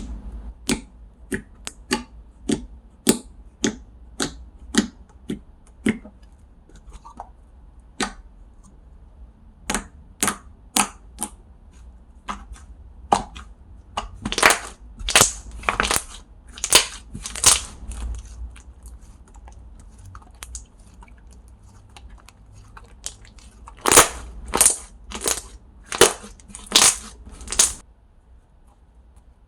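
Handmade slime being squeezed and poked by hand, letting out a series of sharp air-bubble pops and clicks, about two a second at first. From about halfway they become longer, louder crackling pops, with a final run of loud pops near the end.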